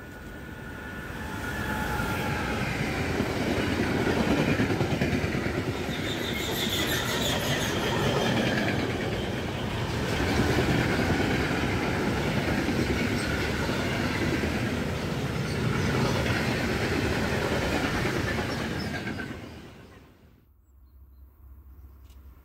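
DB Cargo class 185 TRAXX electric locomotive passing with a freight train: a whine as the locomotive comes in, then the steady rumble and clickety-clack of freight wagons rolling by. The sound fades and cuts off about twenty seconds in, leaving only faint background.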